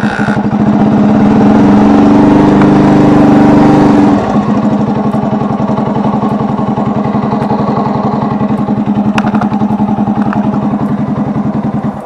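Bajaj Pulsar's air-cooled single-cylinder engine running, held at raised revs for the first few seconds, then dropping back to idle about four seconds in and stopping at the very end. It is being run to show its timing-chain noise, the ticking of a chain that has gone loose.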